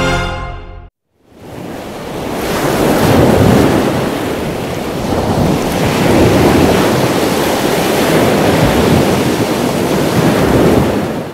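A loud rushing noise like surf or wind swells up after a brief silence about a second in, holds steady, and fades out near the end.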